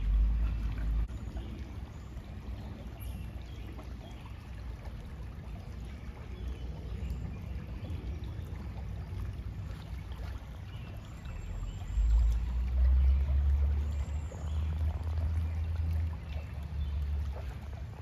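Outdoor ambience of trickling river water, with wind buffeting the microphone in low rumbling gusts at the start and again from about twelve seconds in. A few faint high bird chirps come through near the middle.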